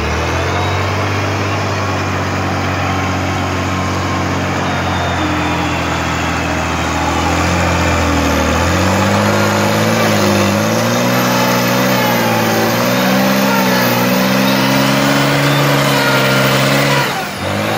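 Chaseside 1750 wheel loader's diesel engine running at a steady pace, then revving up about halfway through. Its pitch rises and falls as the loader pushes into and climbs a pile of earth and rubble.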